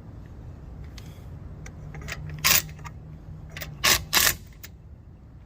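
Three short, sharp mechanical clacks, one about two and a half seconds in and a close pair about four seconds in, over a faint low hum.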